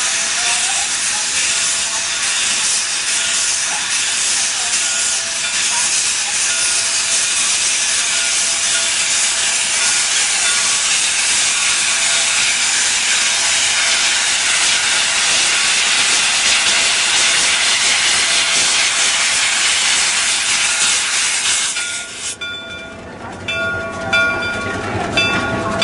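Shay geared steam locomotive starting off, venting steam from low beside its cylinders in a loud, steady hiss. About 22 seconds in the hiss cuts off suddenly, leaving the rumble and clank of the locomotive pulling past.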